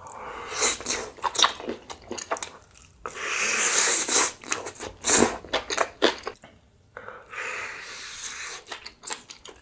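Close-up eating sounds: biting and wet, crunchy chewing of food, in three stretches with short breaks between them.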